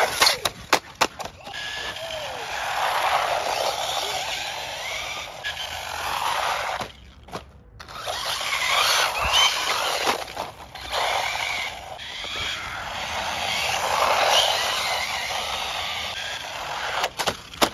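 Brushless RC short-course truck (JJRC Q130) running fast on asphalt: a rushing hiss of tyres and drivetrain that swells and fades as it speeds past, with a quick run of sharp clatters in the first second or so.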